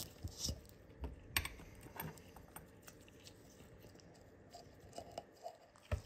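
Faint scattered clicks and rustles of gloved hands handling a tin of adhesive primer and a swab, with a sharper click about a second and a half in.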